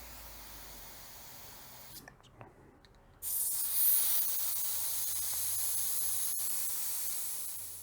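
Air hissing out through the valve of a classic Vespa scooter's inner tube as it is deflated. A loud steady hiss starts about three seconds in, runs for about four and a half seconds and tails off near the end.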